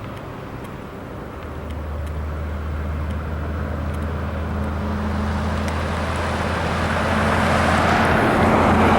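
Engine noise swelling steadily louder, a rushing sound over a low steady hum that sets in about a second and a half in.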